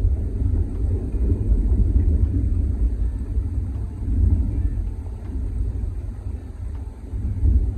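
Gusty wind buffeting the microphone: a loud, rough low rumble that swells and eases with the gusts as a storm builds.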